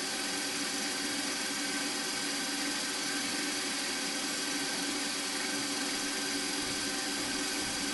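Milling machine spindle running steadily, a hum with several steady tones, while a small drill bit is fed into a thin aluminium plate.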